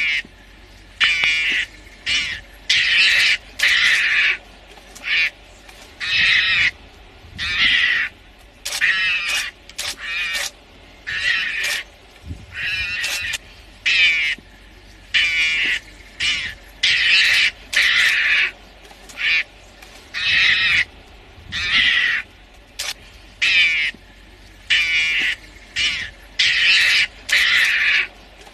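A mongoose calling over and over in short, high calls, each about half a second long, roughly one a second.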